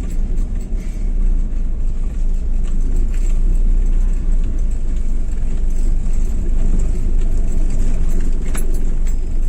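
Cabin sound of a freshly tuned-up 2011 Daihatsu Xenia 1.3 on the move: a steady low engine and road rumble with light rattles.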